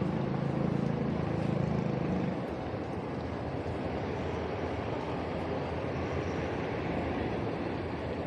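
City street traffic: steady road noise of passing vehicles, with a vehicle engine's low hum loudest for the first two seconds or so.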